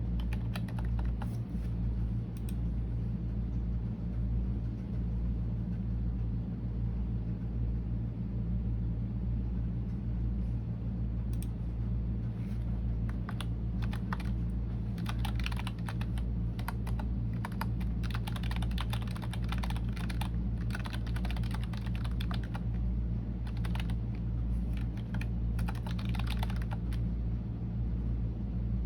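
Typing on a computer keyboard: rapid key clicks in bursts, sparse at first and denser from about eleven seconds in, over a steady low hum.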